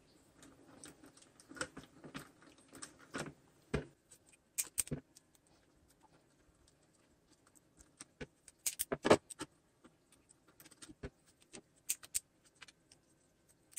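Vinyl electrical tape being pulled off the roll and wrapped around soldered wire joints. It comes as scattered crackles and sharp ticks, with louder clusters about five and nine seconds in.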